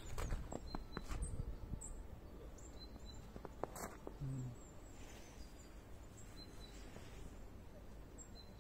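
Footsteps crunching in snow for about the first second, then quiet winter ambience with a few faint, sparse bird chirps.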